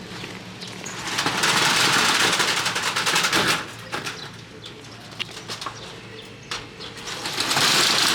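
Organ meat sizzling and crackling on a hot iron griddle. The sizzle swells loudly about a second in, eases off, then surges again near the end.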